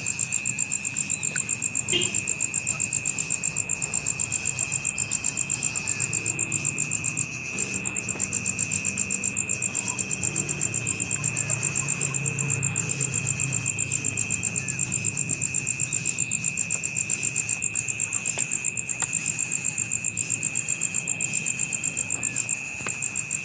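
Insect chorus trilling: a continuous high steady buzz under a higher, rapidly and regularly pulsing chirp.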